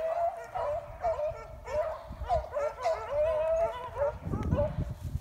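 Beagles baying in the brush, several dogs' voices overlapping in quick repeated calls, a few each second. The calls die away about four and a half seconds in, and a low rumbling noise takes over near the end.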